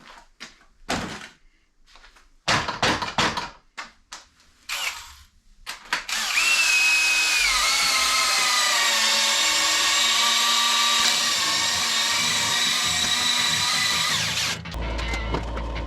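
A few scattered clicks and knocks, then an electric motor runs steadily for about eight seconds, its pitch dipping shortly after it starts, and cuts off suddenly.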